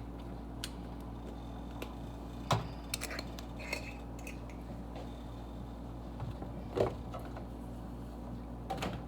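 Scattered clinks and knocks of kitchenware as spices are measured into a soup pot, the loudest about two and a half seconds in and just before seven seconds, one with a short metallic ring. A steady low hum runs underneath.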